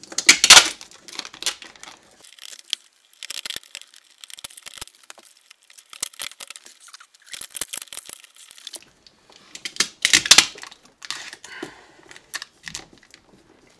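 Hands working lengths of electrical wire with hand tools to splice scrap pieces together: several short bursts of scraping, rustling noise with small clicks in between.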